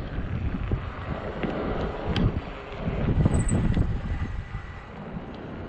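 Wind buffeting the microphone in uneven gusts of low rumble, with a single sharp click about two seconds in.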